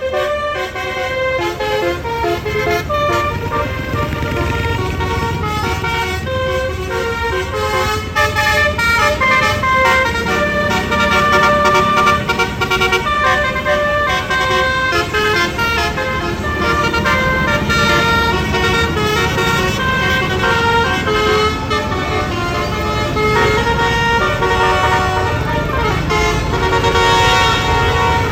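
Basuri bus horns, the multi-trumpet telolet air horns of Indonesian buses, playing a tune in quick stepped notes over the low running of a bus engine.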